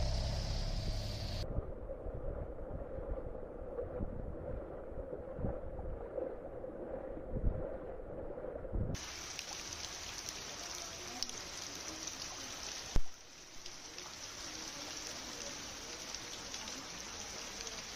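Water noise from rain-flooded streets: a duller, muffled wash for the first half, then a brighter, steady hiss of rain and water. A single sharp knock comes about two-thirds of the way in.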